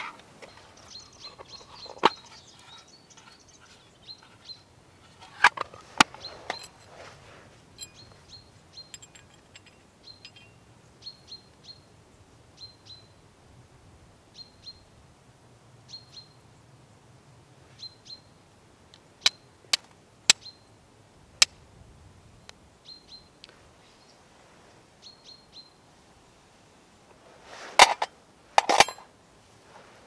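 Flint-and-steel fire lighting: a steel striker strikes a flint in sharp, separate clicks, a few at a time, with two louder, fuller bursts near the end. Short repeated chirps of a small bird run through it.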